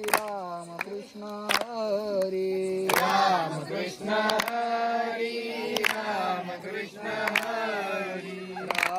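A group of voices chanting a Hindu devotional chant in unison, holding long steady notes. Sharp hand claps keep time about every one and a half seconds.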